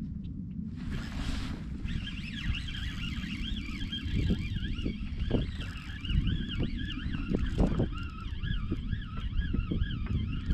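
Wind buffeting the microphone with a steady low rumble, and from about two seconds in a faint siren wailing, its pitch rising and falling quickly over and over. A short rush of noise about a second in and a few scattered knocks.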